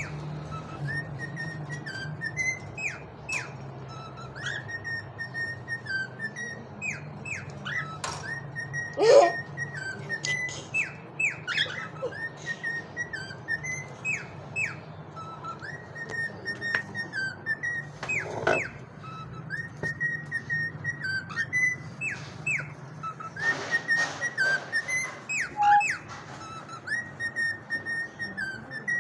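Cockatiels whistling and chirping: a run of short whistled notes, many dropping sharply in pitch, with a louder sweeping call about nine seconds in. A steady low hum runs underneath.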